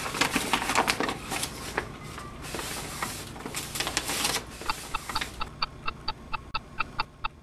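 Dense clattering and rustling, then a rapid, even run of short high-pitched beeps, about five a second.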